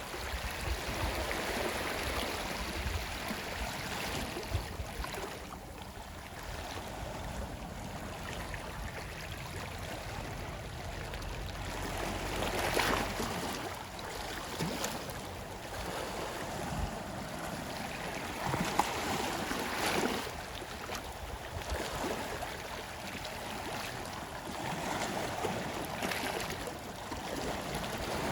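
Sea waves washing onto a shore, the surf rising and falling in swells every few seconds, with the biggest surges about 13 and 19 seconds in.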